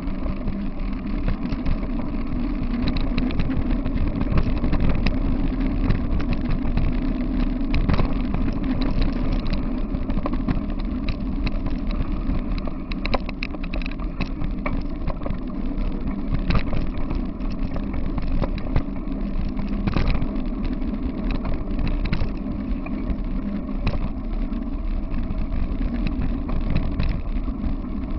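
Wheels of a dog-drawn rig rolling fast over a packed gravel path: a steady rumble with frequent rattles and knocks from the frame and gravel.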